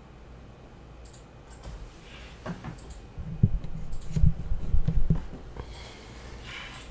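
Handling noise close to the microphone: a few light clicks, then a run of dull thumps and knocks between about three and five seconds in, with brief rustling near the end.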